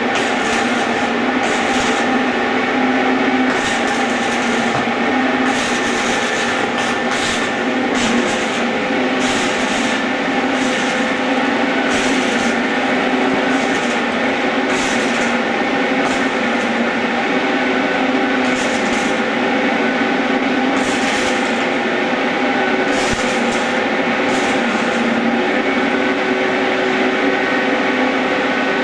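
A power tool works metal without pause: a constant whine with a grinding, rasping noise over it.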